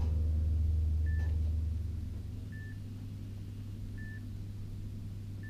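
A short, high electronic beep repeating about every one and a half seconds over a low steady hum. The hum drops in level about two seconds in.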